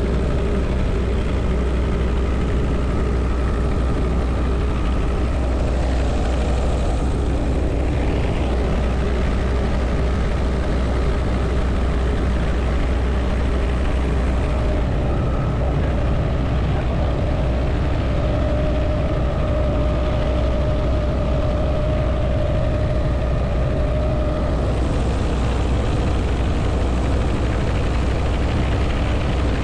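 Helicopter in flight heard from inside its open-door cabin: a steady, deep rotor and engine drone under a rush of wind noise. A faint, steady higher whine rises out of the drone for several seconds around the middle.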